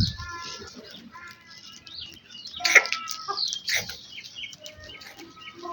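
Several birds calling and chirping over one another, in short pitched calls with a burst of louder calls a little before the middle.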